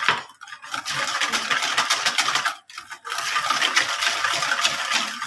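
Cake batter being beaten in a bowl: fast, continuous scraping strokes of the whisk against the bowl, with a short pause about two and a half seconds in.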